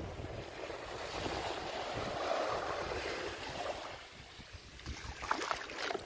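Small surf waves washing up the sand and drawing back, swelling about two seconds in and then easing off. Wind rumbles on the microphone underneath.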